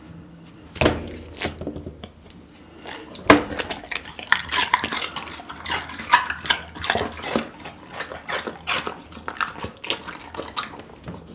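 Golden retriever biting and chewing a piece of raw cucumber: a bite or two about a second in, then a long run of wet crunches and clicks as it chews.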